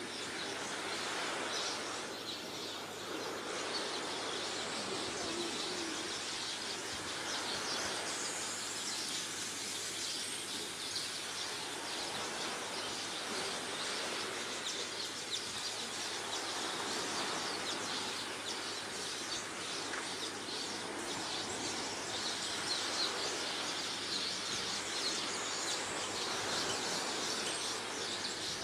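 Outdoor ambience: many small birds chirping over a steady hiss of background noise.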